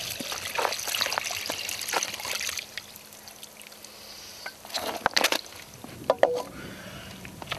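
Water trickling and splashing from a metal cooking pot lifted out of the river shallows and tipped, strongest in the first couple of seconds, with a couple of short louder knocks a little past the middle.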